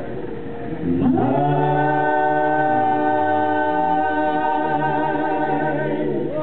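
A cappella vocal quartet of men's and a woman's voices singing. A single voice holds a note, then about a second in the group slides up into a long held chord while a bass voice steps between low notes underneath. The chord ends with a falling slide near the end.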